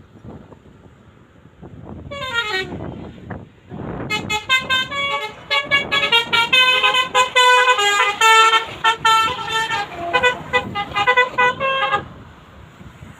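Bus 'telolet basuri' musical horn playing a fast melody of short notes for about eight seconds, then cutting off abruptly. A brief falling swoop of tone comes a couple of seconds before the melody, over the rumble of passing traffic.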